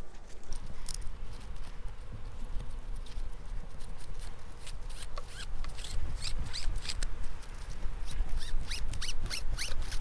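Nylon hive strap being uncoiled and shaken out by hand: a run of scratchy rustles and light clicks from the webbing.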